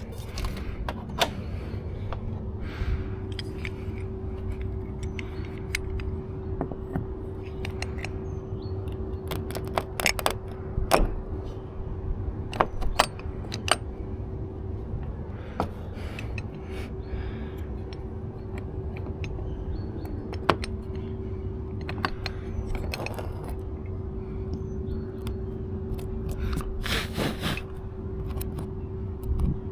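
Scattered clicks, light metallic rattles and short scrapes from hands working on small metal parts, heard over a steady hum.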